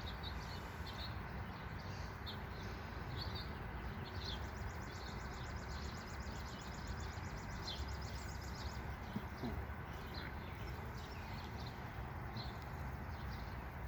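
Steady hum of honey bees around an opened hive, with short high bird chirps scattered throughout.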